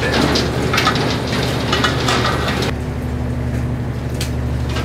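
Commercial trawl boat's engine running with a steady hum, under water rushing and splashing. A little under three seconds in, the splashing stops and only the engine hum carries on.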